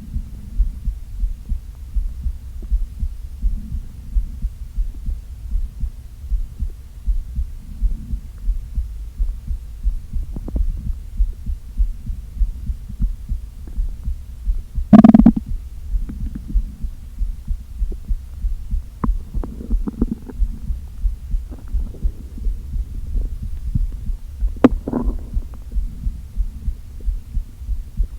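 Empty stomach heard close up: a regular low throbbing like a heartbeat pulse runs underneath, and about halfway through the stomach gives one loud, short growl, followed by softer gurgles later on. These are hunger rumbles from a day without food.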